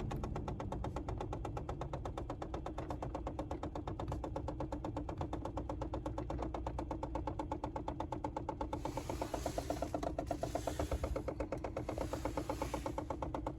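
Rapid, even knocking from the heater (печка) of a Nissan Note E12, the fault that is being shown, over a low hum. A rush of air comes and goes three times near the end.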